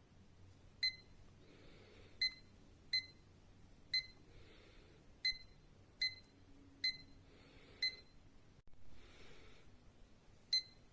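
Digital desk alarm clock giving short, high electronic beeps: nine single beeps at uneven intervals rather than a steady alarm pattern.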